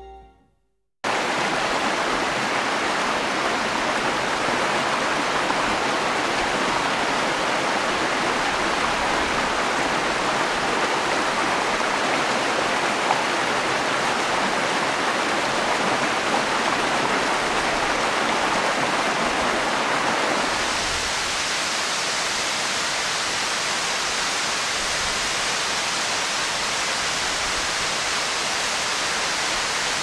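Saruo Falls, a tall waterfall, rushing steadily as a dense wash of falling water. About two-thirds of the way through the sound turns thinner and brighter, with more hiss.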